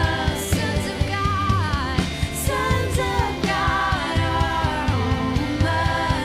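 Live worship music: a woman singing a drawn-out, gliding melody over a band with bass and a steady drum beat.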